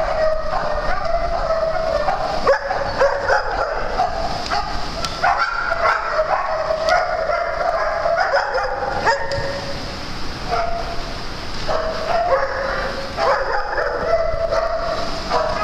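A group of dogs barking over one another without pause, many voices at once.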